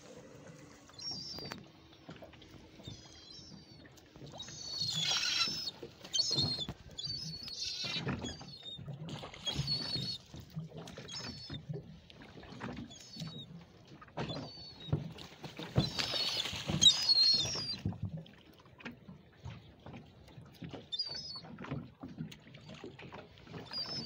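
Sea water splashing and slapping around a small boat, loudest in two bursts about five seconds in and again around sixteen seconds. Short high calls from gulls come again and again over the splashing.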